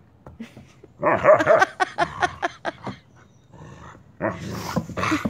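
A large husky-type dog growling and grumbling noisily while play-fighting with a wolfdog puppy: a loud run of rough vocalizing about a second in, a lull, then more near the end. It sounds fierce but is play, not aggression.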